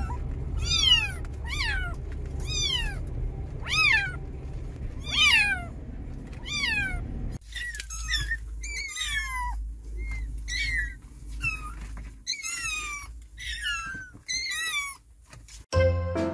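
Three-week-old kittens mewing over and over, high calls that each fall in pitch, about one a second, over a steady low rumble. Jingly music starts near the end.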